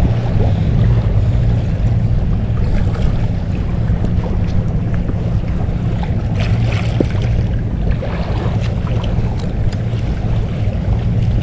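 Small Hangkai outboard motor running steadily, pushing the inflatable boat along, with wind buffeting the microphone.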